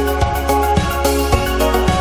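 Background music with a steady beat: sustained synth chords over bass, with regular drum hits about four times a second.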